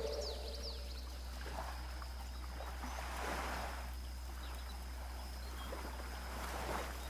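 Faint sea waves washing in soft swells, with a few quick high bird chirps near the start and again around the middle.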